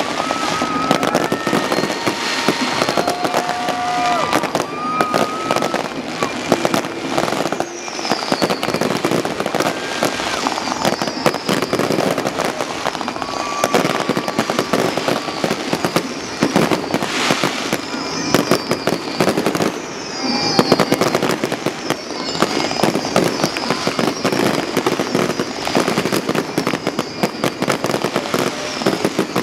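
Fireworks finale: a dense, continuous barrage of aerial shells bursting and crackling. Several high whistles sound over it, some held steady and some falling in pitch.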